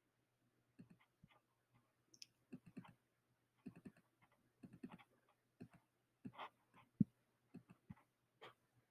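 Faint, irregular clicks of computer keys and a mouse being pressed, one at a time, over a faint low hum.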